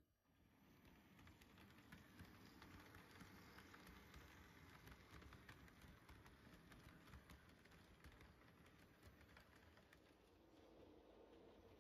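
HO-scale model train (a logging crane flatcar and a chocolate tank car) rolling along the track: a faint, steady running noise full of quick small clicks from the wheels on the rails.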